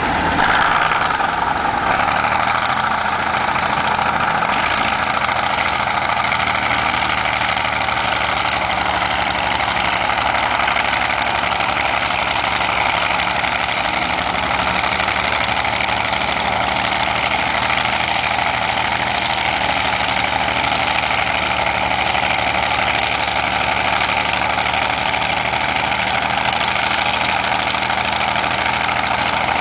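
Diesel engines of antique crawler bulldozers, an International TD-24 and a Caterpillar D8, running steadily while working a dirt pile.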